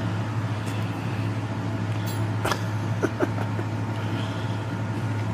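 Box fan running with a steady hum, while a husky puppy mouths and licks at a rubber Kong toy, giving a few short sharp clicks and knocks about two and a half to three seconds in.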